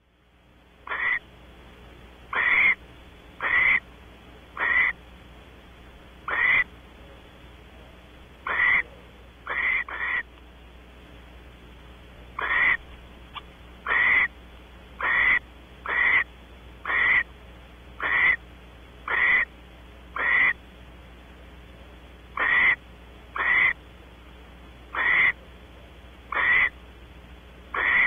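Barn owl giving short rasping hiss calls over and over, about one a second with a few longer pauses, over a low steady hum. These are typical of the food-begging snore a female barn owl gives while waiting for her mate.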